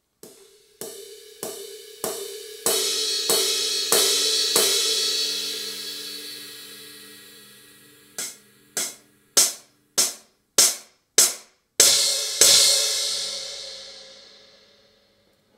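Acoustic drum-kit samples from the Roland TAIKO-1 electronic taiko's AcDrums sound bank, struck in a steady beat. It opens with eight cymbal strokes about 0.6 s apart that ring over one another, then six short, sharp drum hits, then two last cymbal strokes that ring out and fade.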